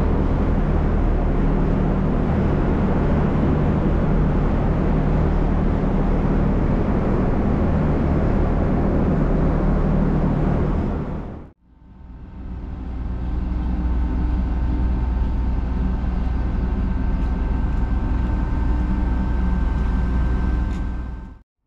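Passenger ferry's engines running with a strong low hum under wind and water rush on the open deck. About halfway through it cuts off abruptly, and a steadier engine hum with a few faint high steady whines takes over.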